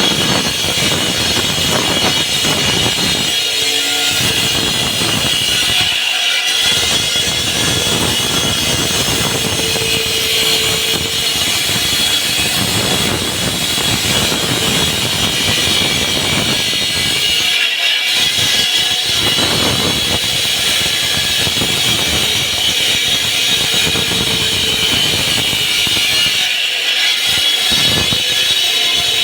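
Concrete cutting saw running steadily through a slab, a continuous high-pitched whine over grinding noise.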